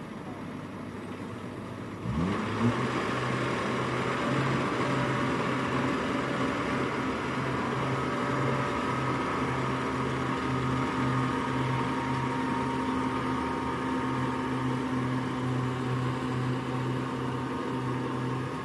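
Engine of a small rice-harvesting machine running at low speed, then revving up about two seconds in. It then runs steadily at higher speed with a regular pulsing low note.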